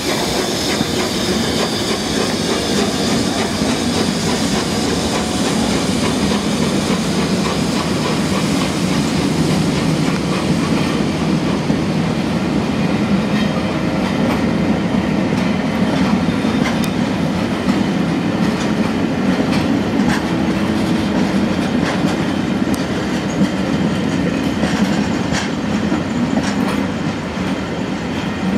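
Vintage Pullman carriages of a steam-hauled train rolling past, their wheels making a steady rumble on the track, with sharper clicks over the rail joints and pointwork from about halfway through.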